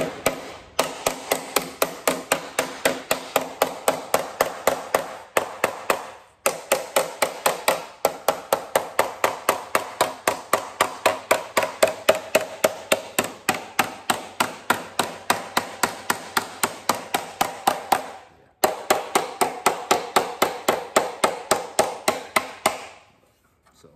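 Steel body hammer tapping along the edge of an aluminium sheet panel in quick, even strikes, about three a second, with two brief pauses and a stop near the end. The taps are peening down a raised lip so the panel edge sits flush, ready for welding.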